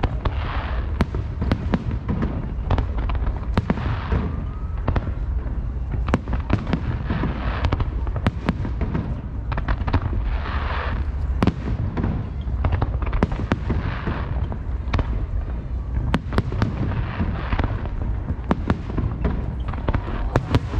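Aerial fireworks shells bursting in a continuous barrage: many sharp bangs, irregular and close together, over a steady low rumble.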